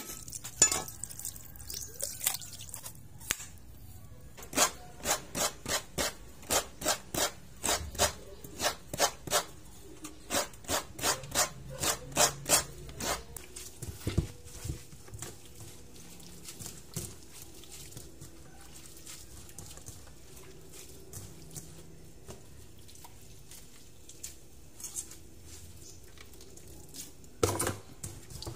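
A machete blade striking a coconut to split it open, then a long run of sharp, evenly spaced strokes about two a second. After that, quieter wet squishing and rubbing of hands kneading and squeezing freshly grated coconut with water in a steel bowl to press out coconut milk.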